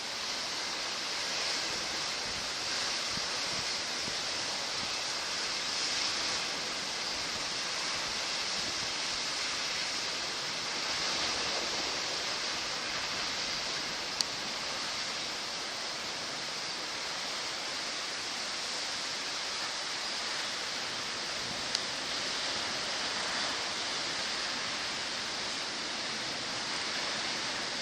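Steady rush of heavy ocean surf from a typhoon swell, even and unbroken, with no single wave standing out.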